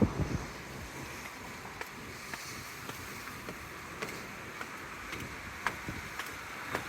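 Footsteps on pavement, about two a second, over a steady background hiss.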